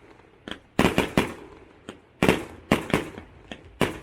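Fireworks display: about ten sharp bangs of exploding shells in quick, irregular succession, some louder and some fainter, each trailing off in a short echoing decay.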